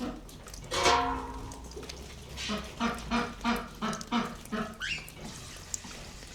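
Animal calls: one loud call about a second in, then a run of about seven short calls, about three a second, and a brief rising call near the end.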